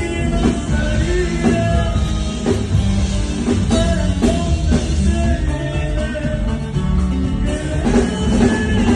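Norteño band music with a steady drum beat, bass and pitched melody lines.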